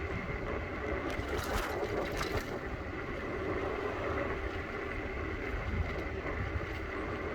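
Riding on a Bird electric scooter: steady wind rumble on the microphone and road noise, with a faint steady whine from the scooter's motor and a few brief rattles a second or two in.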